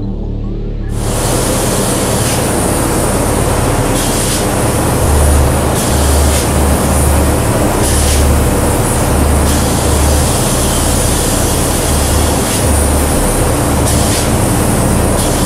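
High-pressure polyurea spray gun spraying coating onto breeze blocks: a loud steady hiss that starts about a second in and runs on.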